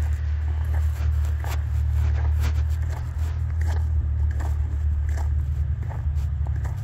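Footsteps crunching on icy snow and sleet at a steady walking pace, about two to three steps a second, over a steady low rumble.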